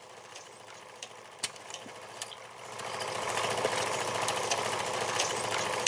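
A few faint clicks, then about three seconds in a steady, fast mechanical rattle comes in and runs on.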